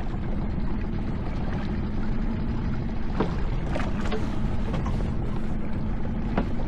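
Steady wind and water noise on a small boat at sea, under a low steady hum, with a few short knocks about three seconds in, about four seconds in and near the end.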